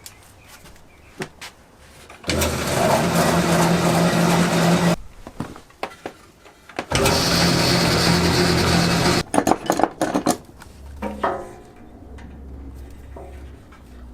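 A small electric power-tool motor run twice for about two and a half seconds each, starting and cutting off abruptly, a steady hum with a hiss over it.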